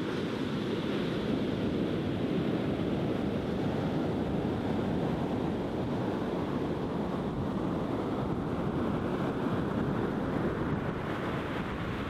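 Sea surf breaking offshore and washing up a sandy beach in a steady, continuous rush.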